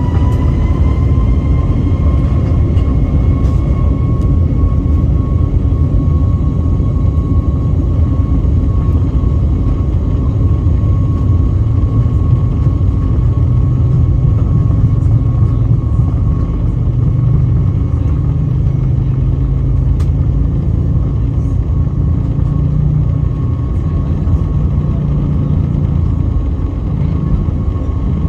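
Airbus A321neo's CFM LEAP-1A engines at takeoff thrust during the takeoff roll, heard from inside the cabin. A steady high engine whine reaches its pitch about a second in, over a heavy rumble from the runway that grows as the plane speeds up.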